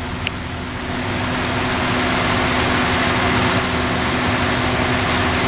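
Vacuum excavation truck running steadily: a continuous machine hum with a steady low tone. A single light click comes just after the start.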